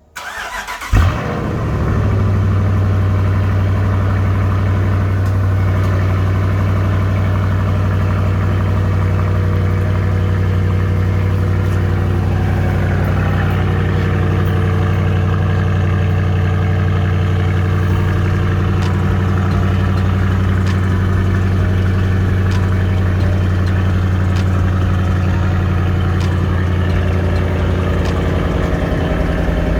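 Cold start of a Dodge Charger's 345 Hemi (5.7-litre) V8: it cranks briefly and catches about a second in with a loud rev flare, then settles into a steady idle.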